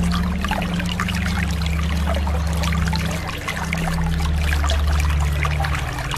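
Calm sea water lapping and trickling, a dense patter of small splashes. Underneath runs a low sustained drone that shifts in pitch about halfway through.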